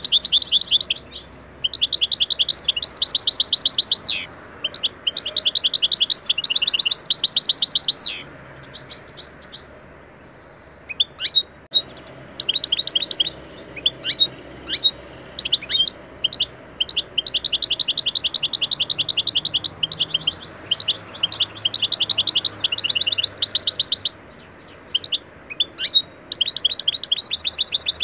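European goldfinch singing: long phrases of fast, repeated twittering notes, broken by short pauses. There is a quieter stretch of scattered single notes about ten seconds in.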